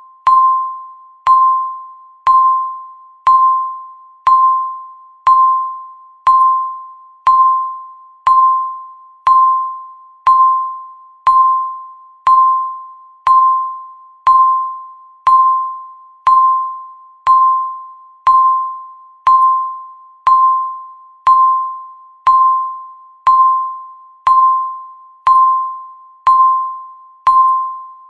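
Countdown timer beep sound effect: a short ringing beep at one steady pitch, repeated once every second, each fading out before the next.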